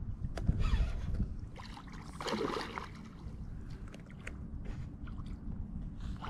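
Water splashing as a hooked carp thrashes at the surface on a tight fishing line, loudest about two seconds in, with a few sharp clicks from the rod and reel. A steady low rumble of wind on the microphone runs underneath.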